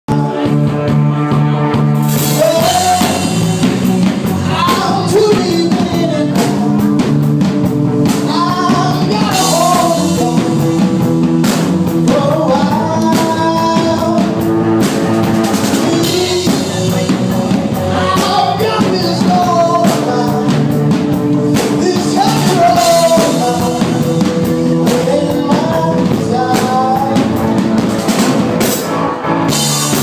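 A live rock band playing: a male vocalist sings into a microphone in phrases of a few seconds over a drum kit and bass guitar.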